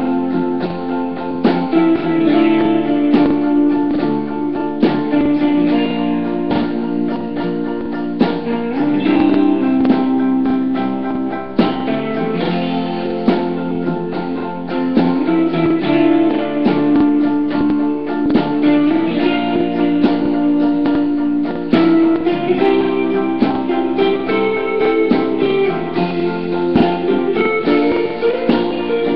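Acoustic guitar strummed through an instrumental passage of the song, with no singing.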